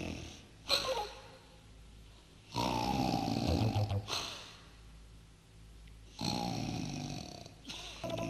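A man snoring in a performed, comic way: a short snort about a second in, then long snores every three to four seconds. In each long snore the pitch slides downward.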